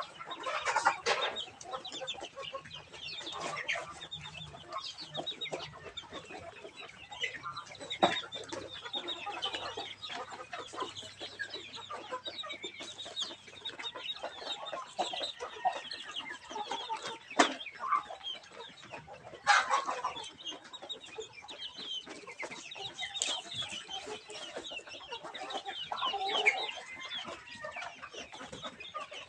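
A flock of young heritage chickens clucking and chirping continuously as they feed at a trough. A few sharp knocks stand out among the calls.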